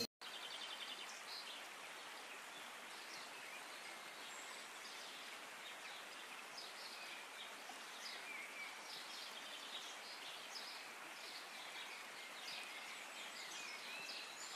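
Faint outdoor ambience: a steady background hush with small birds chirping here and there.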